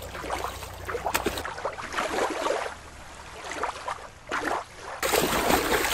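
Water splashing and sloshing, at first shallow water at a shoreline. About a second and a half in, it switches to a different recording of water splashing that runs until near the end.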